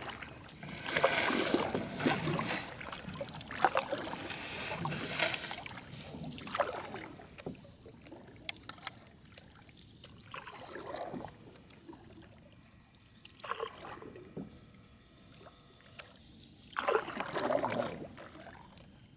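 Canoe paddles stroking through water: a swishing splash every few seconds at an uneven pace, some strokes louder than others.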